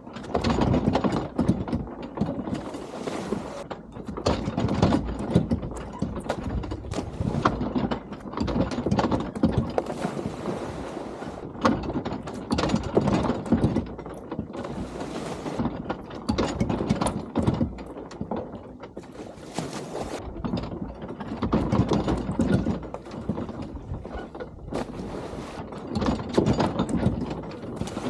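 Gusty wind buffeting the microphone, rising and falling unevenly, mixed with irregular knocks and creaks from the wooden dock the camera sits on.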